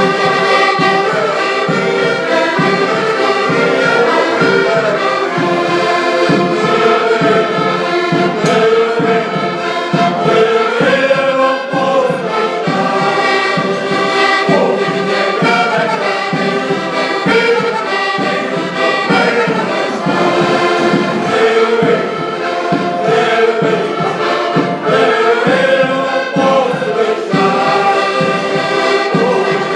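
Music: a group of voices singing together over instrumental accompaniment.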